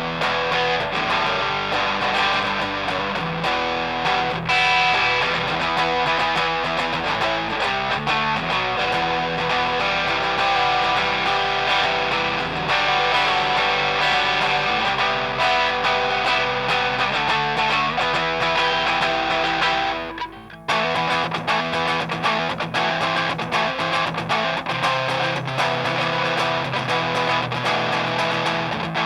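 Electric guitar played through a Grindcustoms Feng Drive, a DIY overdrive pedal, giving a mildly overdriven tone. The playing breaks off briefly about two-thirds of the way through, then carries on.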